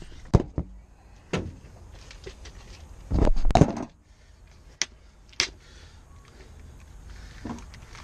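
Plastic parts-organizer box of small hardware being pulled out and handled: a few knocks, then a loud clatter of the box and its loose nuts a little after three seconds in, followed by two sharp plastic clicks about a second apart.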